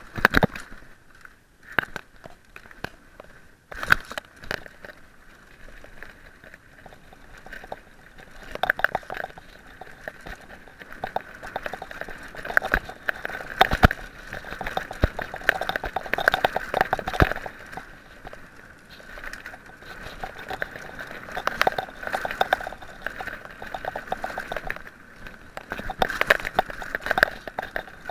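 Mountain bike rattling and knocking as it is ridden over a rough dirt trail, with frequent irregular sharp clacks from bumps over steady tyre and trail noise.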